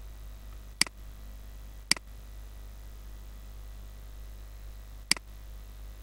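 Three sharp computer mouse clicks: two about a second apart, then a third some three seconds later, over a steady low electrical hum.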